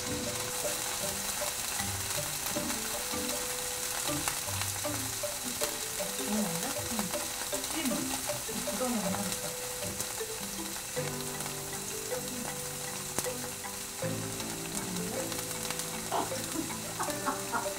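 Tofu pan-frying in oil, sizzling with a steady hiss.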